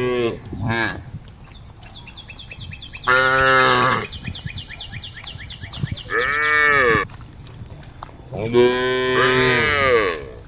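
Cows mooing: several calls of about a second each, the longest near the end, one rising and falling in pitch. A rapid, steady high chirping runs in the background.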